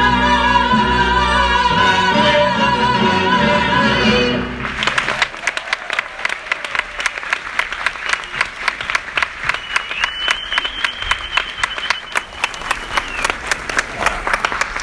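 Theatre orchestra holding a sustained closing chord that cuts off about four and a half seconds in, followed by an audience applauding. A long whistle rises and holds over the clapping near the middle.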